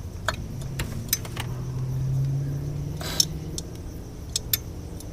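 Scattered sharp metallic clinks and taps of hand tools and bolts, about seven in all, over a low steady rumble.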